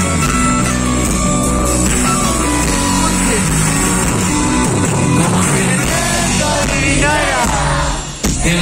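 Live band playing Andean urban popular music, with voices singing over it in the second half. The music dips briefly near the end.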